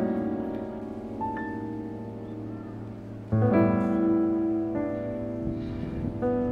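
Solo piano background music: slow sustained chords, with a new chord struck about three seconds in.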